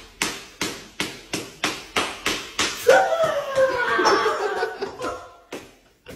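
Even knocks about twice a second, then about three seconds in a loud, shrill laugh for about two seconds, the loudest sound here.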